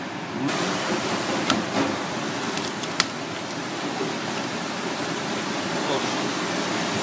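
Steady rushing background noise, with two sharp snips of kitchen scissors cutting through cooked lobster shell, about a second and a half apart.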